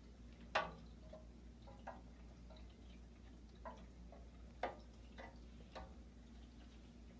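About six light clicks and drips from a small aquarium net being tapped and shaken over the water, the loudest about half a second in.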